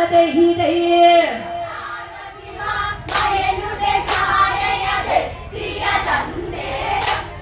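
A group of women singing a Malayalam Onamkali folk song together, with a few sharp hand claps about three, four and seven seconds in.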